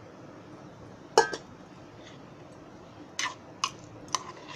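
Steel spoon and steel bowl clinking against a metal pot as paneer cubes are tipped in and stirred: one sharp, briefly ringing clink about a second in, then three lighter clinks near the end.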